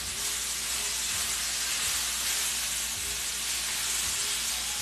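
Beef sizzling as it fries in hot oil in a metal pan, a steady hiss, with a few faint knocks.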